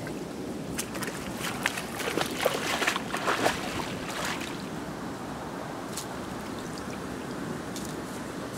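Shallow muddy water splashing as a person wades and gropes in it with her hands: a flurry of splashes through the first half, then a steady low wash of water.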